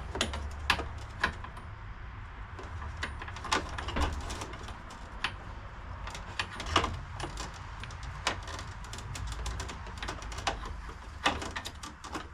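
Irregular sharp clicks and light metallic rattles of a scooter's throttle cable being loosened, spun and worked free from the handlebar throttle assembly, over a steady low hum.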